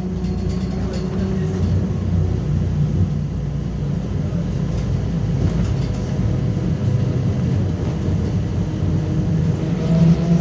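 Cabin ride noise of a LiAZ-5280 trolleybus under way: a steady low rumble from its running gear and body. Its DK-213 traction motor gives a faint whine that fades early on and comes back, rising slightly in pitch, near the end as the trolleybus picks up speed.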